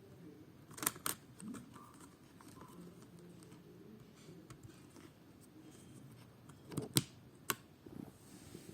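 Sharp clicks of small hard parts being handled, two about a second in and two more around seven seconds, over faint rustling.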